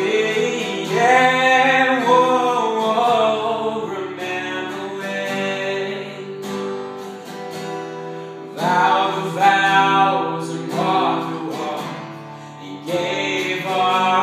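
A man singing with a strummed acoustic guitar. Sung phrases come about a second in, again around nine seconds and near the end, over steadily ringing guitar chords.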